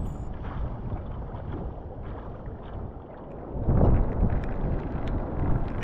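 Strong squall wind buffeting the microphone, with rain pelting the sea around a surf kayak and a loud gust a little past halfway.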